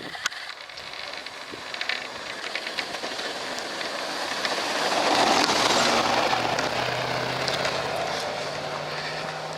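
Chevy pickup with a Western snowplow passing while plowing: a rush of snow being pushed off the blade swells to its loudest about five to six seconds in, then fades as the truck moves off, its engine's low hum carrying on.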